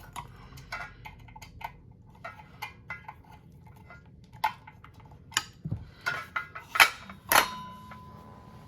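Small metallic clicks and clinks of a tool working the set screws on a ceiling fan's down rod and motor coupling. Two sharper metal clanks come about seven seconds in, the second ringing briefly.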